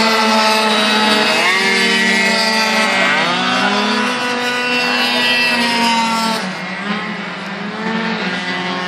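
Several racing scooters' small engines running hard at high revs, their overlapping engine notes rising and falling as they accelerate and back off through the corners. The sound eases a little past the middle and builds again near the end.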